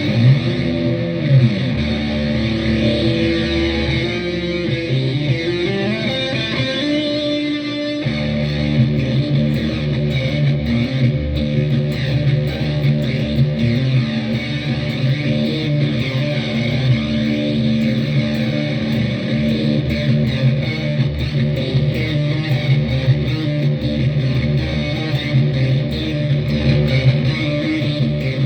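Electric guitar played through a Donner Arena 2000 multi-effects processor and heard over PA speakers, with sustained notes and chords. About eight seconds in the tone changes abruptly, as when a different preset or effect is switched in.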